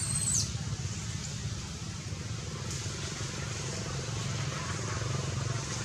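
A baby macaque gives one short, high-pitched squeal right at the start, over a steady low rumble that runs throughout.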